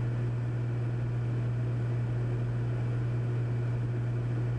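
Steady in-flight drone of a Cessna 400's turbocharged six-cylinder engine and propeller, heard in the cabin: a constant low hum under an even rushing noise.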